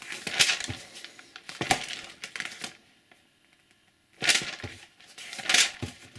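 Magazine pages being turned by hand: a series of short paper rustles and flaps, with a brief quiet pause about halfway through.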